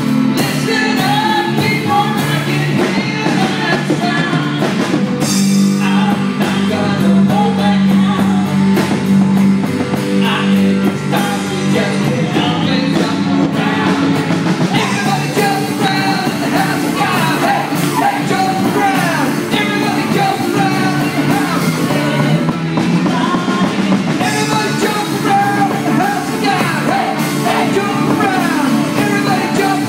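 Live worship band playing with singing, at a steady loud level.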